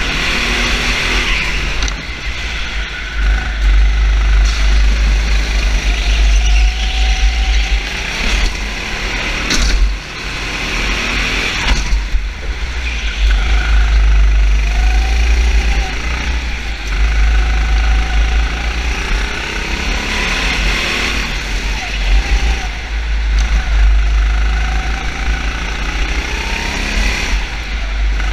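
Racing engine revving up and down again and again, its pitch rising and falling over a heavy low rumble.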